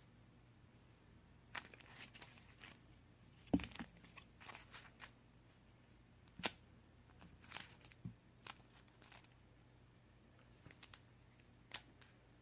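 Faint, scattered crinkling and rustling from a homemade squishy toy being handled and squeezed, with one sharper knock about three and a half seconds in.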